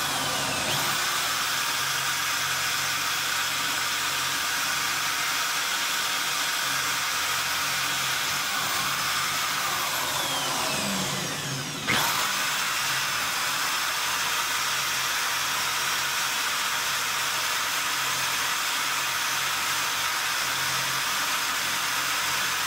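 Corded electric drill running steadily, spinning a stick welding electrode in its chuck while a knife edge is held against the electrode's flux coating to sharpen it. About eleven seconds in the motor winds down briefly, then starts up again.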